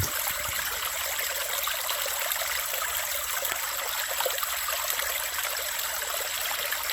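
Water running steadily, like a stream flowing.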